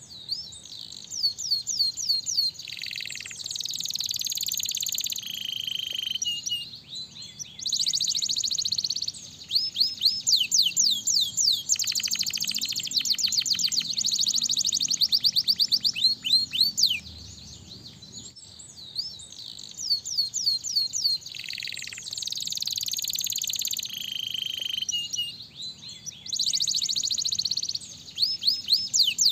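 Domestic canary singing a long, fast song. Rapid trills of repeated notes run into quick rising and falling whistled glides, phrase after phrase, with short breaks between.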